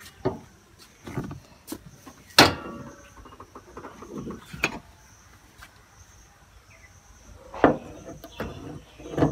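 A Honda Amaze's bonnet being opened by hand: a series of sharp clunks and clicks from the hood and its metal prop rod being unclipped and set in place, the loudest about two seconds in and another near the end. A steady high insect buzz runs behind.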